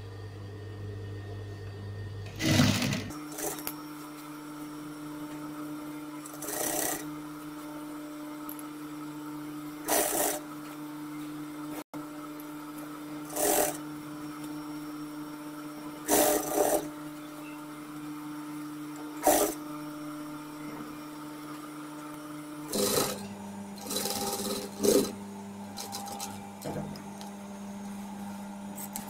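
Sewing machine with its motor humming steadily, broken every three seconds or so by brief bursts of stitching as the needle is stopped and the fabric turned between short runs.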